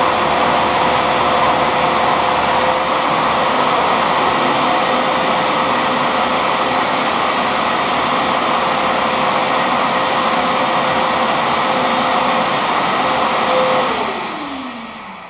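Shopsmith multipurpose tool running as a lathe, its motor and spindle making a steady whine. About 14 seconds in it is switched off and winds down, the pitch falling as it slows.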